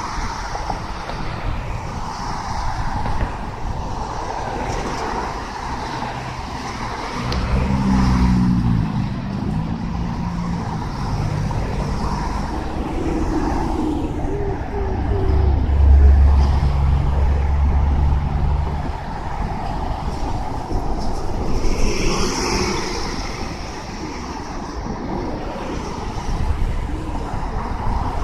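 Road traffic passing on a busy street. A heavy vehicle's engine rises in pitch about a third of the way in, then runs with a loud low drone around the middle.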